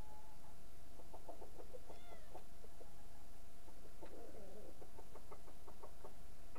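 Roosters clucking in two runs of short, quick clucks, with a brief high chirping call about two seconds in.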